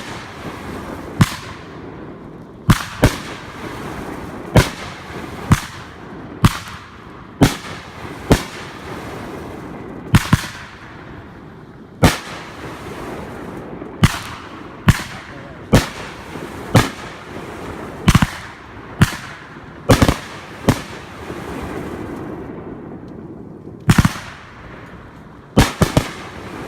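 Consumer fireworks going off: a long run of sharp bangs, roughly one a second at uneven spacing, over a steady hiss.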